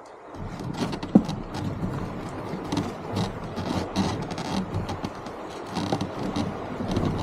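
A rapid, irregular string of knocks, clicks and scrapes, with one sharp knock about a second in.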